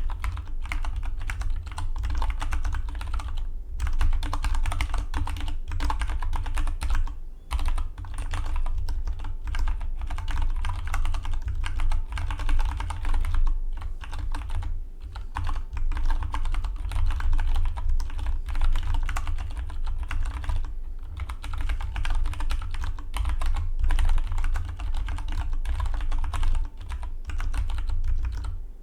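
Fast, continuous typing on a Dygma Defy split mechanical keyboard: a dense run of keystroke clicks, broken by brief pauses every few seconds.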